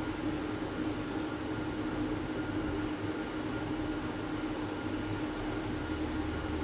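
Steady background hum and hiss with one constant low tone and no distinct strokes or knocks.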